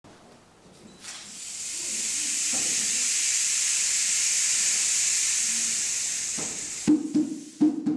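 Rain stick tipped upright, its filling trickling down in a long hiss that swells in over about a second and fades out. Near the end a hand drum comes in with about three sharp strikes.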